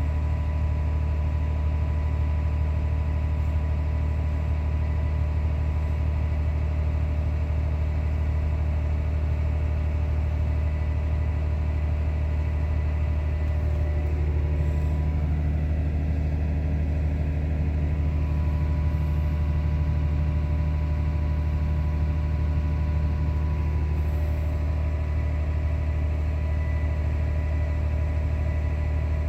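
Farm tractor engine running under steady load, heard from inside the cab: a constant deep drone with thin steady whine tones above it. About halfway through the tone shifts for roughly ten seconds, then returns to the earlier sound.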